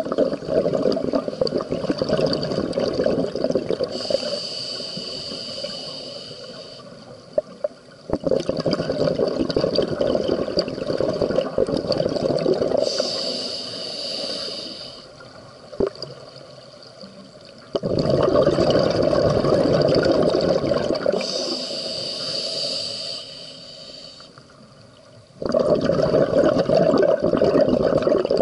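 Scuba diver breathing through a regulator underwater: each breath is a steady hissing inhale through the demand valve, followed by a long rush of exhaust bubbles. Four exhales and three inhales in a slow cycle of about eight seconds.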